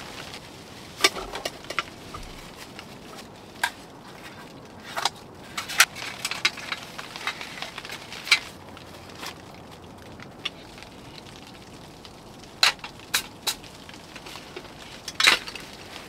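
About a dozen sharp, irregular pops and crackles over a low steady hiss: wet wood burning in a small tent wood stove, mixed with knocks and rustling from gear such as a folding container being handled.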